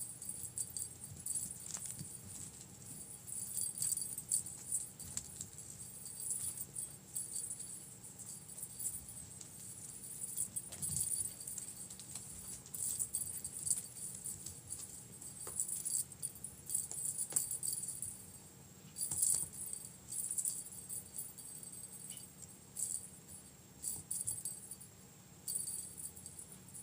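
A small jingle bell jingling in irregular bursts of shaking, typical of a bell on a kitten's toy being batted about in play.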